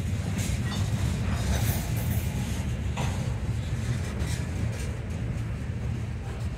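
Freight train of covered hopper cars rolling slowly past: a steady low rumble of steel wheels on rail, with a few sharper clanks scattered through it.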